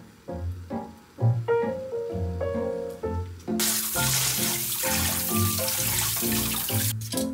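Background music, with a kitchen tap running onto beef short ribs in a steel tray for about three seconds, from about three and a half seconds in, as the blanched ribs are rinsed clean. The water cuts off suddenly near the end.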